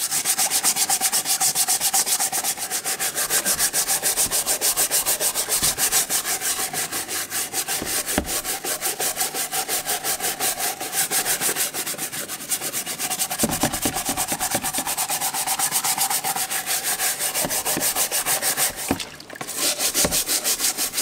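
Stiff plastic scrub brush scrubbing the carapace of a large common snapping turtle through wet, gritty mud, in rapid, regular back-and-forth strokes with a brief break near the end. The brush is working at a hard crust of moss fused onto the shell.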